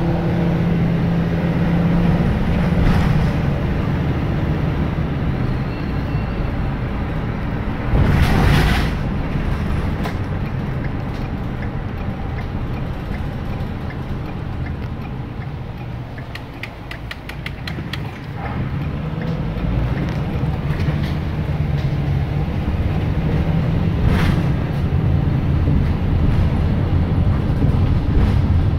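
Car engine and road noise heard from inside the cabin while driving, a steady low rumble. About halfway through the engine sound drops away and grows quieter, then builds again a few seconds later as the car speeds up. A short loud rush comes about eight seconds in.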